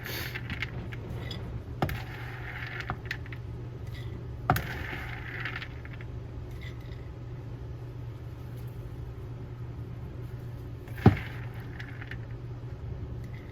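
Dry popcorn kernels rattling into a glass mason jar, with three sharp clinks of glass, the loudest near the end, over a steady low hum.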